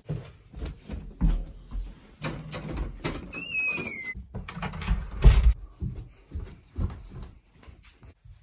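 Footsteps thudding down wooden stairs, with a door opening and its hinge giving one short squeak that falls slightly in pitch about three seconds in.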